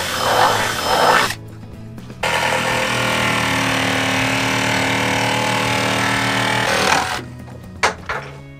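Cordless power tools working fibreglass: a drill boring a starter hole for the first second or so, then after a brief pause a cordless jigsaw running steadily for about four and a half seconds as it cuts a round hole through the boat's fibreglass cockpit wall. A couple of sharp knocks come near the end.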